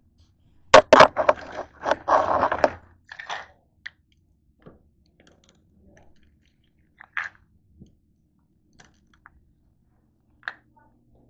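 Handling noise of a handheld camera being carried and gripped: a few sharp knocks about a second in, a short stretch of scraping and rubbing, then scattered faint clicks.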